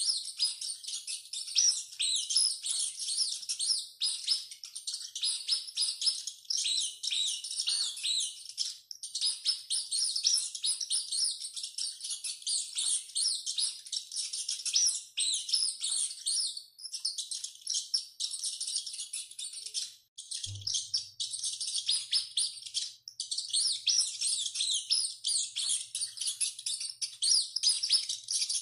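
Dense, continuous high-pitched squeaking and chirping from many small animals. About twenty seconds in, the chirping briefly drops out and a single low thump is heard, followed by a faint low hum.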